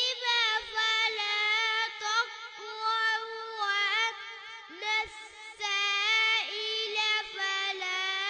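A young boy singing into a microphone: long held, high notes with quick ornamental turns, in several phrases with short breaths between them.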